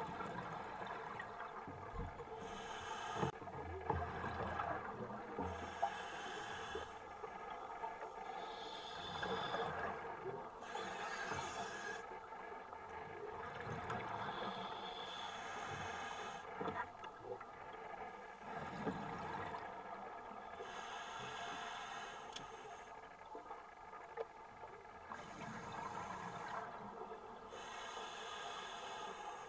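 Scuba diver breathing through a regulator underwater: a hiss and a bubbling exhalation alternate every few seconds, with a few dull knocks from handling gear.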